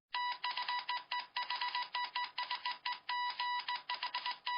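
Electronic beeping at one steady pitch, switched on and off in an uneven run of short and longer beeps, like Morse code.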